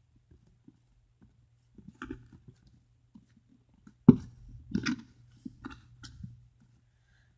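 Hands working Play-Doh and its tools on a tabletop: scattered soft taps and clicks, with one sharp knock about four seconds in and a short cluster of knocks just after, over a steady low hum.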